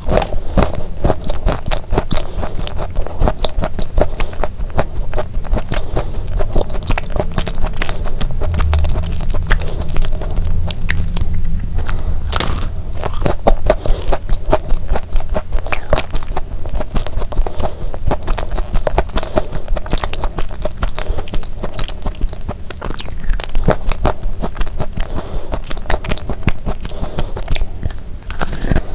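Close-miked chewing and biting of a thick sandwich cookie with a crumbly shortbread crust and a soft filling: a steady run of small, wet mouth clicks and crunches.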